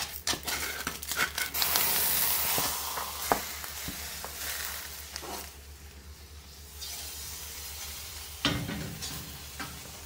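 Food sizzling in a pan with a steady hiss, loudest from about two to four and a half seconds in, with scattered light clicks and a knock near the end.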